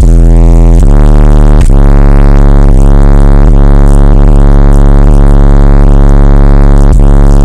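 Bass-heavy electronic music played very loud through two Digital Designs 1500-series 12-inch subwoofers in a ported box tuned to 29 Hz: long, deep bass notes stepping in pitch every half-second or so.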